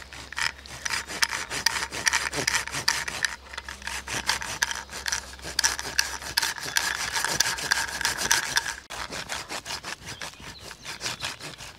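A hand saw cutting through a thin dead standing pole in quick, steady back-and-forth strokes. It stops briefly after about nine seconds, then the strokes start again.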